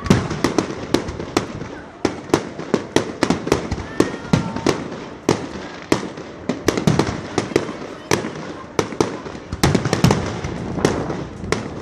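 Fireworks display going off: many sharp bangs in quick, irregular succession, often several a second.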